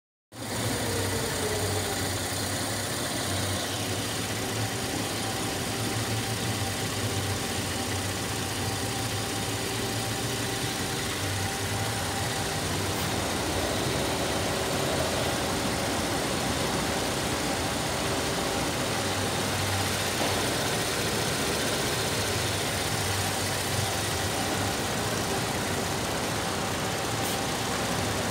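Holden Commodore 3.6-litre V6 engine idling steadily, heard from the open engine bay.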